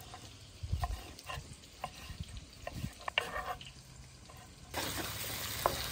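A kitchen knife chopping strips of green chile on a wooden cutting board: scattered soft taps. About three-quarters of the way in, it gives way abruptly to steady sizzling of tomatoes, onion and chile frying in hot lard in a clay pot.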